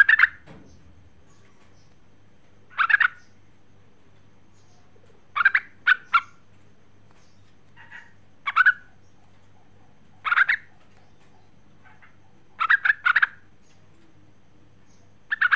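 Yellow-vented bulbul (trucukan) giving short, chattering calls about every two to three seconds, some in quick runs of three notes. This is the call the uploader gives as a female calling to a male.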